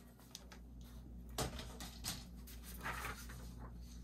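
Quiet handling of a plastic paper trimmer and paper on a cutting mat: a few light taps and a brief rustle about three seconds in as the trimmer is moved aside.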